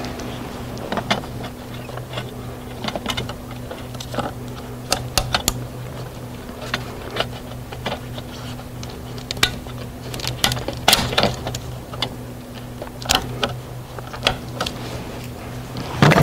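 Scattered clicks, taps and small rattles of gloved hands and tools working on hoses and plastic connectors in a car's engine bay, over a steady low hum.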